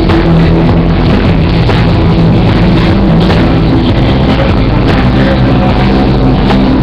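Loud, continuous music with sustained low notes, steady in level throughout.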